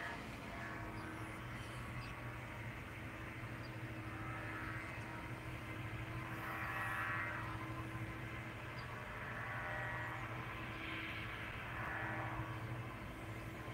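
A distant engine's steady low drone, with a few fainter higher sounds swelling and fading over it.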